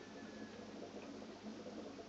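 Faint, steady aquarium background noise, most likely from the tank's air-driven box filter, with a few light ticks.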